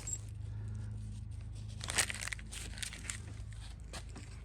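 Light rustling and a few sharp clicks as parts of a mower's control cable are handled, over a steady low hum.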